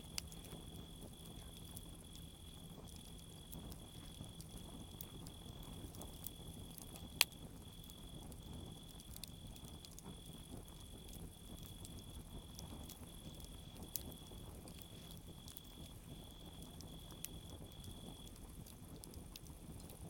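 Wood bonfire crackling with scattered sharp pops, the loudest about seven seconds in. A cricket chirps steadily, a little under two chirps a second, and stops near the end.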